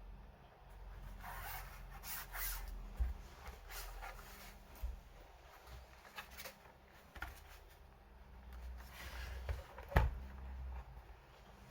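Handling noises: scattered rubbing and rustling with a few light clicks, and one sharper knock about ten seconds in, over a low steady hum.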